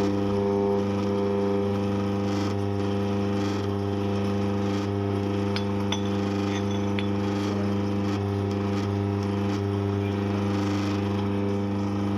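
Eureka Mignon Single Dose coffee grinder's motor running with a steady droning hum, with a few light ticks about halfway through; it is the vibration and noise the owner reports as a problem with the grinder.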